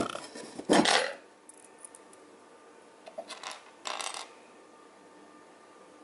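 Small plastic keyboard-switch parts clattering and clicking against a hard surface as they are handled and set down: a sharp clatter right at the start and a louder one about a second in, then two lighter bursts of clicks around three to four seconds in.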